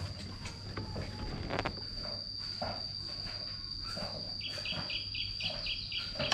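Steady high-pitched insect drone, with soft rustles and taps from hands tying string onto a bamboo kite spar over plastic sheeting. About four and a half seconds in, a second rapid pulsing call joins, about four pulses a second.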